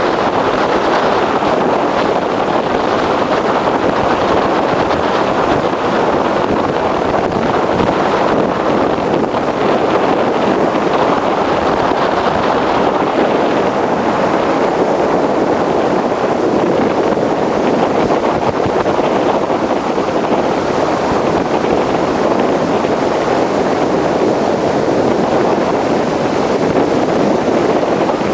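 Motorboat running steadily under way, its engine drone mixed with wind noise on the microphone.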